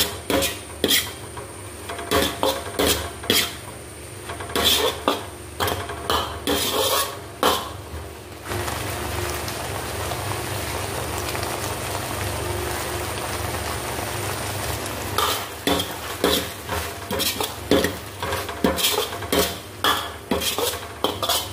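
Metal ladle clattering and scraping against a steel wok in quick repeated strokes as fish pieces in oyster sauce are stir-fried. From about eight seconds in the strokes stop and a steady sizzle of the frying sauce takes over for several seconds, then the ladle strokes resume.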